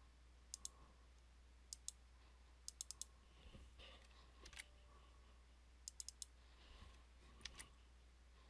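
Faint clicks of a computer mouse and keyboard while text is edited: sharp clicks in quick pairs like double-clicks, and two runs of four, over a low steady hum.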